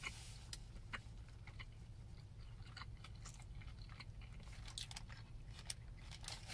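A person chewing food close to the microphone, faint, with irregular small crunches and mouth clicks.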